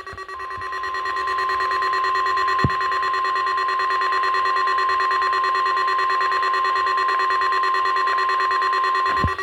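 NOAA Weather Radio 1050 Hz warning alarm tone through a weather radio receiver: one steady high tone held for about nine seconds over steady receiver hiss, sounded for the station's weekly test of the emergency alert system.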